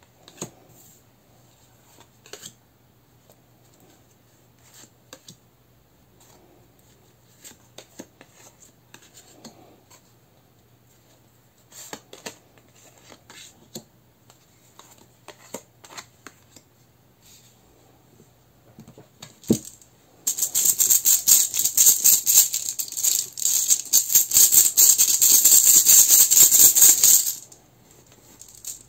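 Tarot cards handled on a wooden table: soft clicks and taps as cards are drawn and laid down, then about 20 seconds in a deck of cards shuffled fast for about seven seconds, a loud dense rattle of card edges that stops abruptly.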